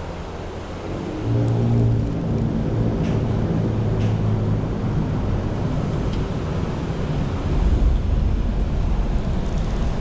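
An engine droning steadily, coming in about a second in and fading a few seconds later, over low wind rumble on the microphone.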